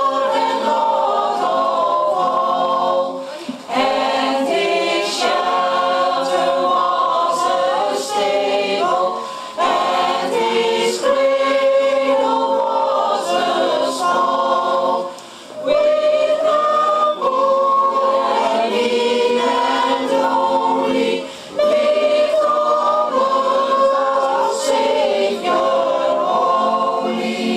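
A mixed choir of men and women sings a Christmas carol in sustained sung phrases, with a short breath-break about every six seconds.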